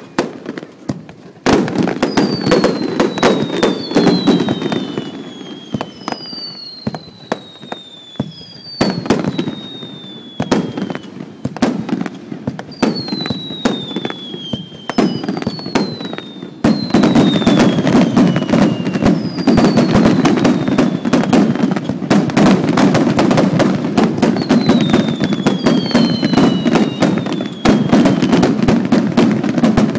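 Set-piece fireworks going off in a dense run of cracks and pops, heaviest in the second half, with repeated shrill whistles that each fall in pitch over about a second.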